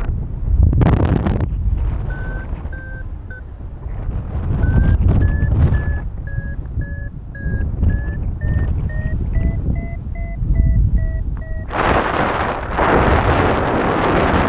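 Paragliding variometer beeping its climb tone: short evenly spaced beeps about twice a second that rise slightly in pitch, the sign that the glider is climbing in rising air. Wind buffets the microphone throughout, growing loud near the end as the beeping stops.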